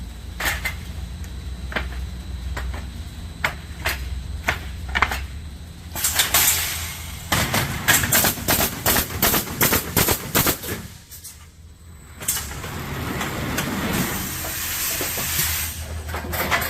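Woodpecker Junior pallet nailing machine at work over a steady low hum. Its nail guns fire in sharp single shots, then in a quick run of shots about eight seconds in, followed by a long steady hiss of air.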